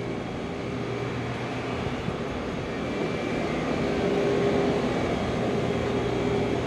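A steady mechanical drone with a low hum running under it, getting louder about four seconds in.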